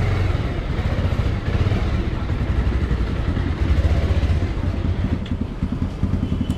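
Bajaj Pulsar 220F's single-cylinder engine running with a steady, fast low-pitched pulse.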